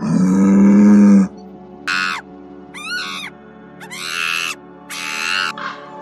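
A buffalo's low bellow, about a second long, then four short, higher animal calls, one of them wavering in pitch, over background music.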